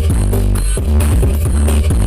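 Loud electronic dance music with heavy bass and a steady beat, played through a large outdoor sound system.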